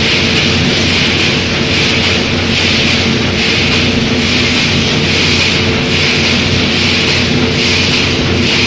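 Automatic wire mesh welding machine running: a steady electrical hum under a hiss that pulses in a regular rhythm, somewhat faster than once a second, as the machine cycles through its welds.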